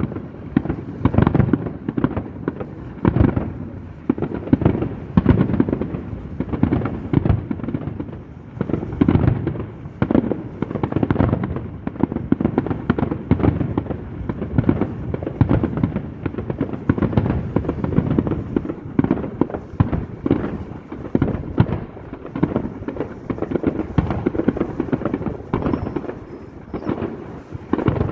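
Fireworks display going off in a dense, unbroken run of booms and bangs, many bursts a second, swelling and easing in loudness.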